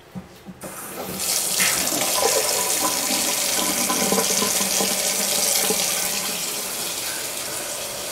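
Water running from a Moen two-handle kitchen faucet into a stainless steel sink. After a few light clicks the flow comes on about a second in and runs steadily.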